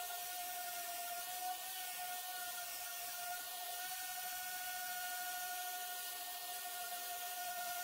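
Electric random orbital sander running with a steady whine and a hiss from the pad abrading the surface. It is sanding paint off the face of a wooden decking board to expose routed lettering.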